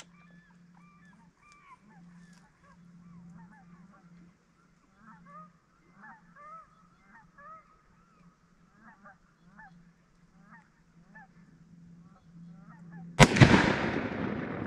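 A .303 British Enfield rifle fires once near the end: a sharp crack followed by a long fading echo. Before the shot, birds call faintly and repeatedly with short calls.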